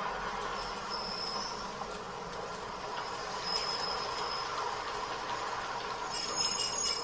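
N gauge model KiHa 30 diesel railcar set running on its track with a steady small-motor and wheel rumble, with brief high squeals about a second in and around three and a half seconds. Near the end it gets a little louder and clicks as the wheels cross the turnout.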